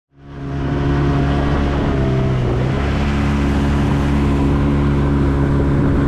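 Motorboat engine running steadily under way, with rushing wind and water noise. It fades in at the start, and its pitch dips slightly about two and a half seconds in.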